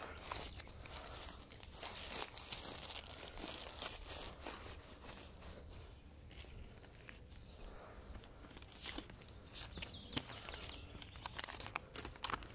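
Faint footsteps on a dirt path with irregular rustling and crackling, over a low steady rumble.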